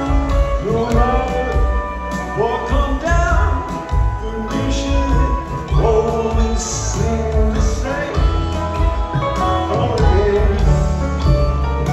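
Live band playing a slow song: acoustic guitar, piano, bass and drums, with gliding lead lines over a steady bass.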